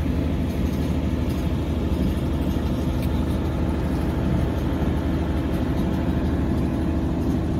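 A nearby engine running steadily at idle, a constant low drone with an even hum.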